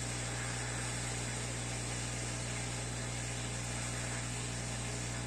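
Steady hiss of air from a running blower or fan, with a low electrical hum underneath and no change throughout.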